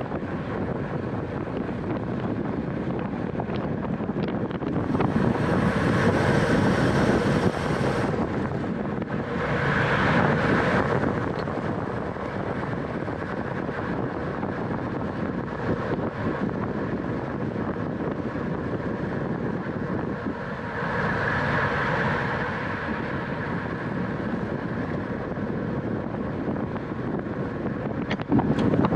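Wind rushing over the microphone of a camera on a racing bicycle moving at speed, with steady tyre and drivetrain noise underneath. It swells louder a few times.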